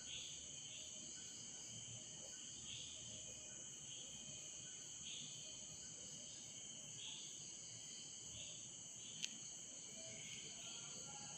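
Faint, steady, high-pitched insect chirring, with soft pulses every second or two, and a single small sharp click about nine seconds in.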